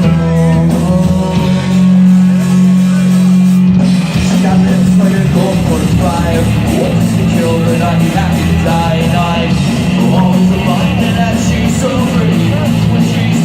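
A rock band playing live and loud: a sustained bass line and guitar, drums with regular cymbal hits, and a singing voice.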